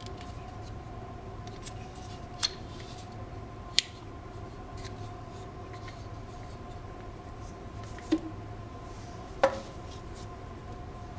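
Plastic clicks and taps as a phone charger and its plug adapter are handled and put down on a table: four short sharp clicks spread through, over a faint steady hum.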